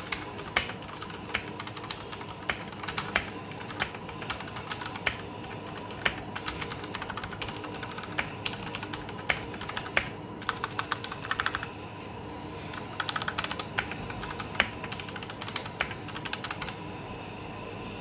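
Typing on a Royal Kludge RK71 mechanical keyboard with brown tactile switches: a steady patter of muted keystroke clacks, not clicky, with a quicker burst about two-thirds of the way through.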